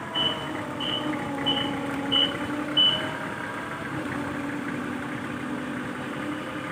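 Nissan forklift's engine running steadily while its warning beeper sounds five short high beeps, about one and a half a second, stopping about three seconds in.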